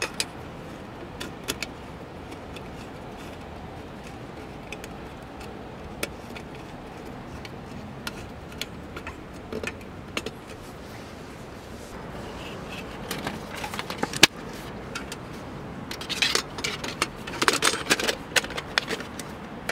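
Scattered clicks and knocks, then a quick run of clattering from small hard objects for the last few seconds.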